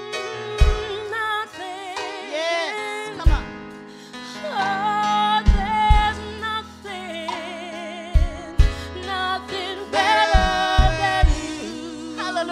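Live gospel worship music: a singer with vibrato over keyboard and a drum kit, the kick drum thumping every second or two.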